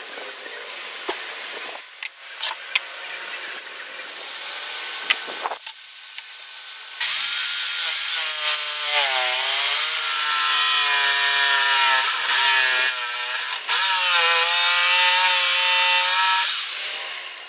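Corded jigsaw sawing through the wooden edge of a tabletop, starting about halfway through. Its motor pitch sags and recovers as the blade bites, with a brief stop and restart, and the saw cuts off shortly before the end. Before it starts there are a few light knocks and clicks.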